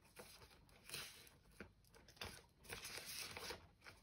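Faint crinkling and rustling of a clear plastic binder envelope as polymer banknotes are handled and slid into it, in several short bouts.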